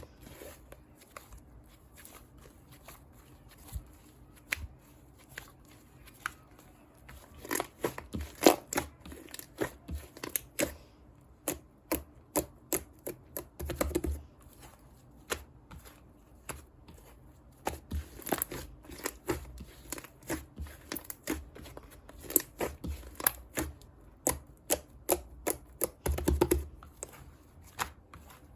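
Irregular crackly, sticky clicks and rustles from whipped cream being handled, some coming in quick clusters, with the busiest stretches about 8 seconds in and again around 26 seconds.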